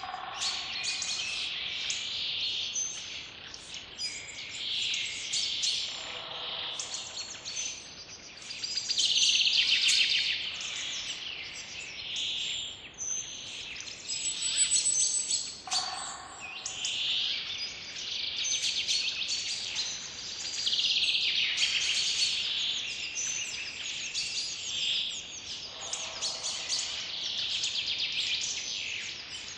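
A forest chorus of several songbirds, with dense, continuous high chirps and trills. A lower call recurs about every ten seconds.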